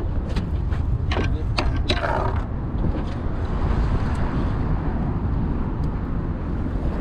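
Wind buffeting the microphone in a steady low rumble, with a few sharp clicks and knocks in the first two seconds.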